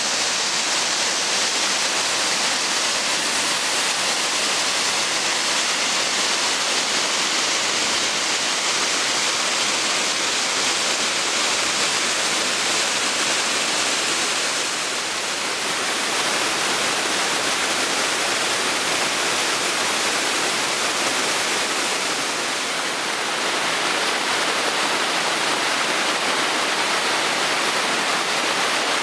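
Steady rush of a waterfall pouring into its plunge pool, running full after recent rains; it turns briefly a little softer twice.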